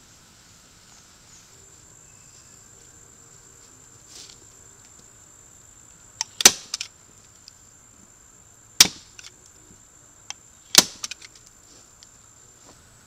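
A stapler driving staples through a paper target into a plywood board: three sharp snaps about two seconds apart, with a few lighter clicks around them.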